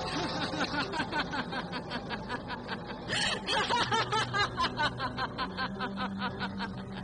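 A woman laughing at length, a long run of quick ha-ha pulses, with a faint steady low hum underneath.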